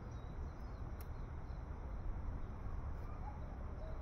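Outdoor pond-side ambience: a steady low rumble with a few faint bird chirps near the end and a single sharp click about a second in.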